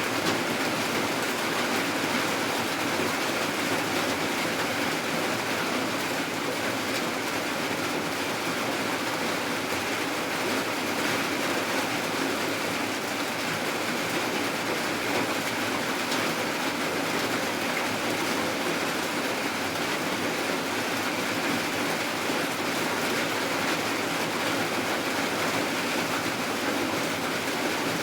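Steady rain falling, an even hiss without breaks or changes in strength.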